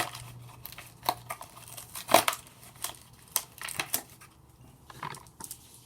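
Foil trading-card booster pack wrapper crinkling and crackling as it is handled, in scattered sharp bursts, with a faint low hum in the first second or so.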